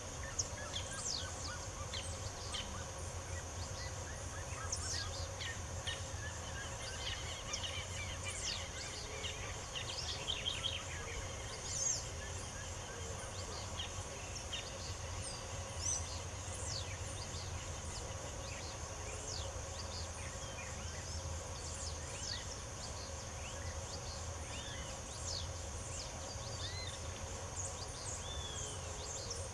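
Several birds chirping and whistling in short, scattered calls, with a run of rapid trills about a quarter to a third of the way in. Beneath them run a steady high insect buzz and a low hum.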